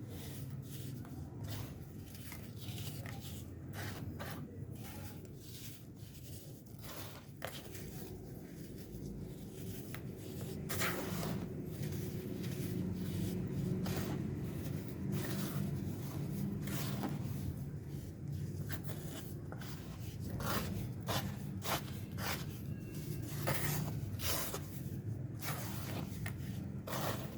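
Compacted yellow-dyed baking soda being crushed, giving irregular crunches and crackles over a low steady hum.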